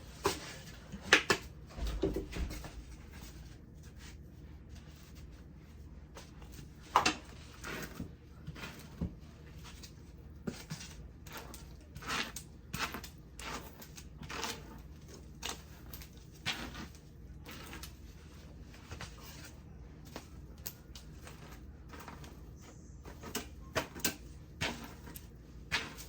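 Scattered household handling noises: irregular clicks, knocks and light rustles, with the sharpest knocks about a second in and about seven seconds in.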